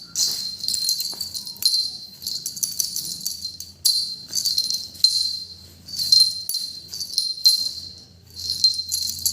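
A small bell on a cat's collar jingling in irregular shakes, a burst or two a second, as the cat plays.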